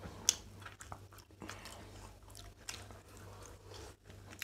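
Faint eating sounds: chewing, with a few small clicks of a steel spoon against steel plates.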